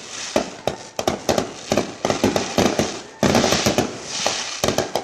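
Fireworks going off in a rapid string of sharp bangs and crackles, several a second, with a sudden louder hissing, crackling stretch starting about three seconds in.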